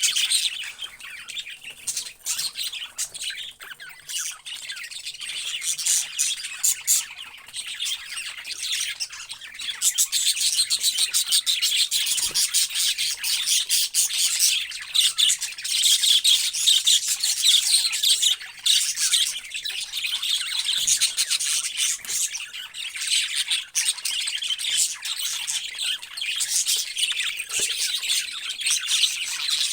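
Many parrots chirping and squawking at once in a dense, continuous chatter, growing louder about ten seconds in.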